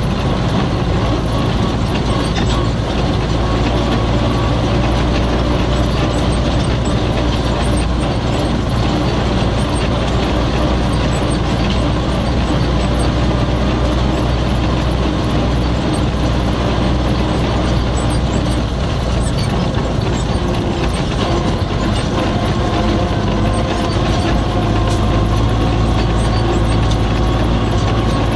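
Inside the cab of an MTZ-80 tractor: its four-cylinder diesel running steadily under load, pulling two trailers, with the cab and controls rattling over a rough dirt track.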